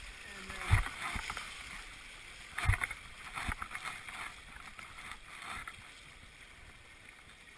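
Whitewater rushing and splashing around a canoe running a Class III rapid, with two louder splashing thumps, about a second in and near three seconds, then smaller splashes that fade to a quieter wash.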